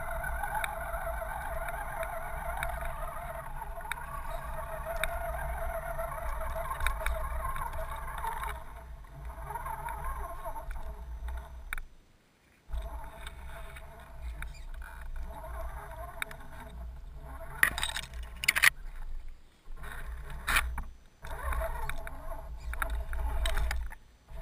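Axial SCX10 RC crawler's electric motor and gears whining as it drives through shallow floodwater, with water splashing, and later some sharp clicks and scrapes as it pushes through twigs and brush. The sound cuts out briefly a few times.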